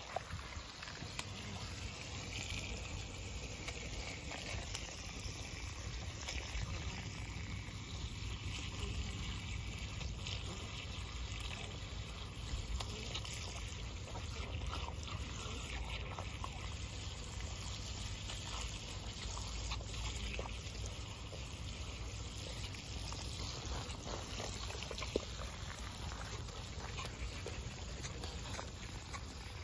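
Water running from an open garden hose and spraying onto grass, a steady hiss that does not let up, with a few faint short clicks.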